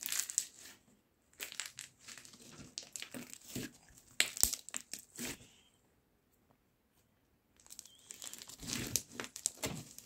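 Bubbly slime squeezed in the hands, its trapped air bubbles popping and crackling in quick clusters, with a pause of a couple of seconds before a last run of crackles.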